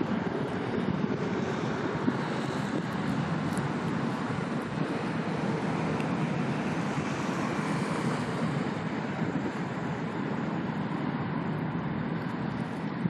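Steady low rumble of engines mixed with wash of water, even throughout with no distinct events.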